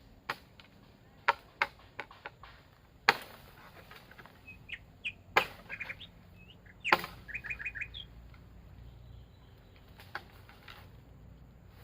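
Bamboo being chopped: a dozen sharp, irregular knocks, three much louder blows in the middle. Forest birds chirp between them, with a quick run of five short notes about seven seconds in.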